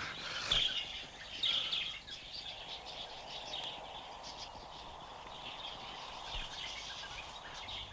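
Tropical forest ambience: birds chirping in short calls during the first two or three seconds, over a low steady hiss.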